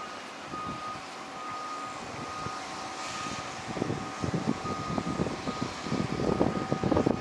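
An electronic warning beeper sounds repeatedly, about once a second, over the steady hum and whine of heavy construction machinery. From about halfway through, gusts of wind buffet the microphone and grow louder.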